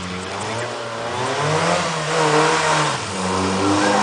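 FSO Polonez Caro's Rover 1.4 four-cylinder engine revving hard, its pitch climbing about a second and a half in, dropping near three seconds, then rising again.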